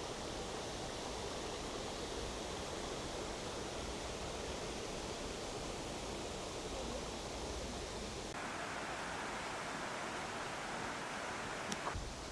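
Steady rushing of a river flowing beside the path. About 8 seconds in the sound turns brighter and hissier, with less low rumble.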